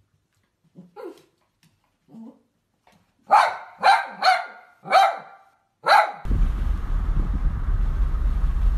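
Small dog barking: a few faint sounds first, then five sharp barks in quick succession over about three seconds. About six seconds in, this gives way to a steady low rumble of road noise inside a car.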